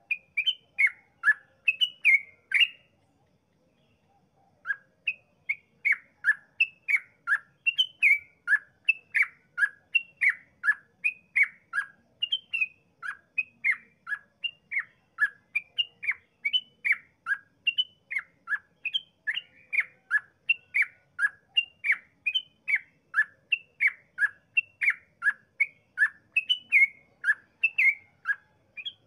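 Yellow-vented bulbul (trucukan) in full, vigorous 'ropel' song: a long rapid run of short, clear, down-slurred notes, about two a second. A brief pause comes about three seconds in, then the notes run on unbroken.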